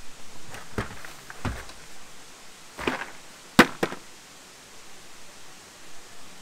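A hard-sided cooler handled, lifted out of an SUV's cargo area and set down: a few separate knocks and bumps, the sharpest about three and a half seconds in.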